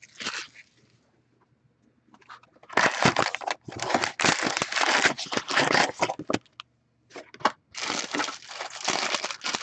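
Foil-wrapped Upper Deck Ice hockey card packs crinkling as they are handled and taken out of an opened cardboard box. The crinkling starts about two and a half seconds in, breaks off briefly after six seconds, and starts again near the end.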